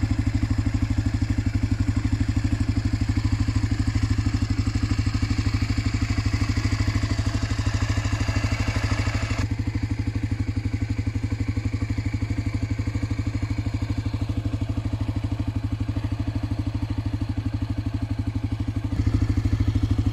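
Honda NX250 Dominator's single-cylinder four-stroke engine running at a steady pace while the bike is ridden along a dirt and gravel track. About halfway through, a higher hiss above the engine note drops away suddenly, and near the end the engine grows a little louder.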